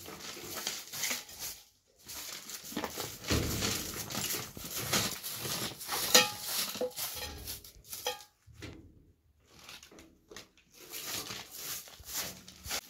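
Short straw hand broom sweeping a dusty dirt floor: repeated scratchy swishes in uneven strokes, with short pauses between runs of strokes.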